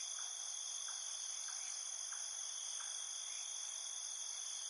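Steady high-pitched insect chorus of crickets trilling, with faint short chirps recurring about every two-thirds of a second beneath it.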